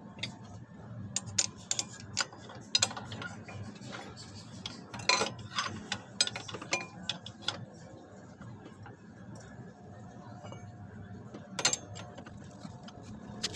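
Metal hand tools clinking and knocking against the clutch bell of a Honda Vario 125's CVT, irregular sharp clicks and clanks as a clutch holder and wrench are fitted onto the clutch nut.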